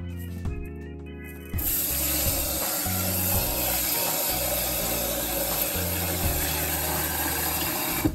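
Kitchen tap running into a pot, a steady rush of water filling it; it starts about a second and a half in and cuts off at the very end.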